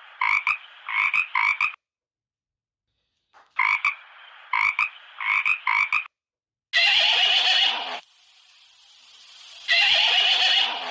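A frog croaking in two bouts of about four quick croaks each, with a short silence between. About two-thirds of the way in, a horse whinnies twice, each call lasting about a second.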